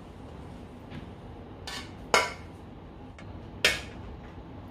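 A metal cooking pot and metal tongs clanking and scraping as food is tipped out onto a plate and the pot is set back on a portable gas stove: a few light knocks, with two sharp louder clanks about two and three and a half seconds in.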